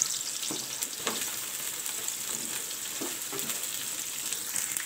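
Sliced onions and green chillies sizzling steadily in hot ghee and sunflower oil, with a few faint clicks.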